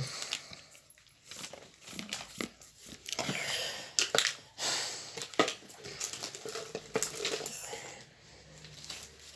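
Crinkling and rustling of plastic wrapping, with irregular small clicks and knocks, as toy doll packaging and its pieces are handled.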